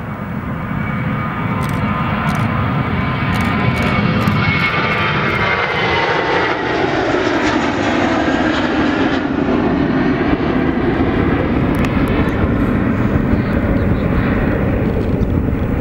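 An Airbus A320-232's twin IAE V2500 turbofan engines at take-off thrust as the jet accelerates past, lifts off and climbs away. The loud jet noise builds over the first few seconds, its whining tones slide down in pitch as the aircraft goes by, and a heavy rumble carries on as it climbs out.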